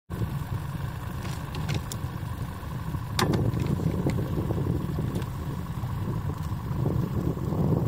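Boat engine running steadily at trolling speed, a low rumble with a steady whine over it. A single sharp click about three seconds in, after which the rumble is slightly louder.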